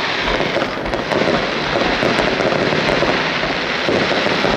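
Fireworks display: aerial shells bursting in a dense, continuous barrage of bangs and crackling.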